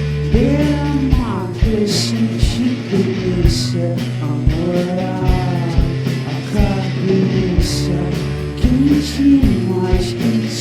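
Psychedelic rock band playing: a regular drumbeat, a steady bass line and guitar, with a voice singing gliding phrases over it.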